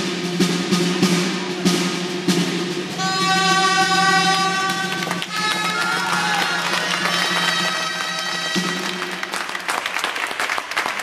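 Traditional castellers' tune on gralla shawms over a steady timbal drum beat, the melody climbing to higher notes about three seconds in and stopping near the end. Applause and clapping then rise as the human tower is brought down.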